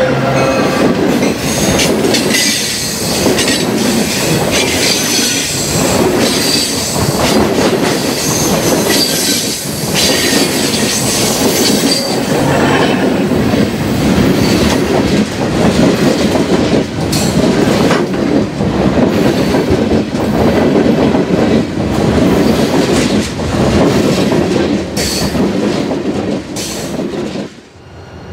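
Diesel-hauled freight train passing close by: the locomotive goes past, then a long string of freight cars clacking over the rail joints with high-pitched wheel squeal. The sound drops away sharply near the end.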